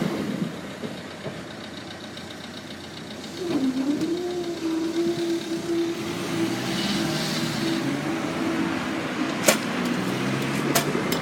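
Class 165 diesel multiple unit's underfloor diesel engine running, a steady engine tone setting in about three seconds in after a faint even ticking, with two sharp clicks near the end.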